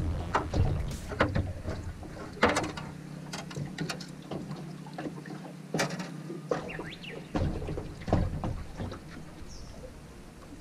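Irregular knocks, clicks and splashing as a hooked black bass is brought to the side of an aluminium bass boat and lifted aboard by hand; a low steady rumble fades out about three seconds in.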